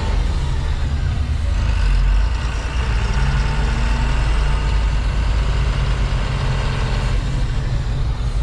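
Tata tipper truck's diesel engine running under way, heard from inside the cab, its revs rising twice as the truck picks up speed.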